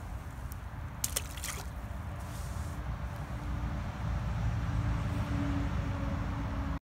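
Fishing rig plopping into the water with a few sharp clicks about a second in, over a low rumble of wind on the microphone that gets louder about four seconds in.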